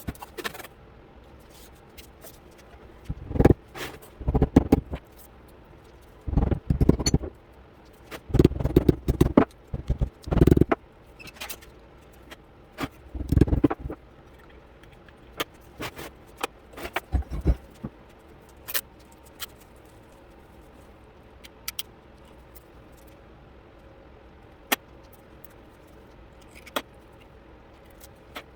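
Metal parts and tools clinking and scraping as they are handled, in several short bursts through the first half, then a few scattered single clicks.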